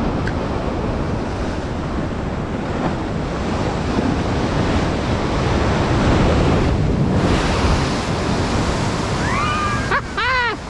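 Sea waves surging and breaking along the shore, with wind buffeting the microphone. Near the end come a few short, high cries that rise and fall in pitch.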